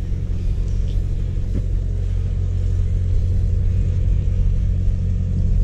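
A steady low mechanical rumble with a constant hum, slowly growing louder.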